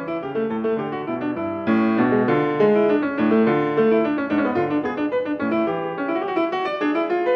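Piano music, a steady stream of notes in quick succession.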